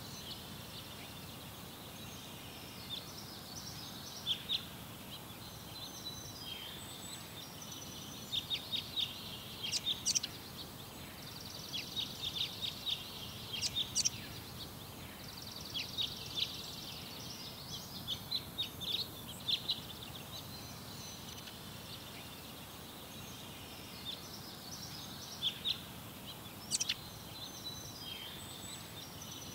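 Small birds chirping, with many short high calls and a few rapid trills coming and going, over a steady low background hiss.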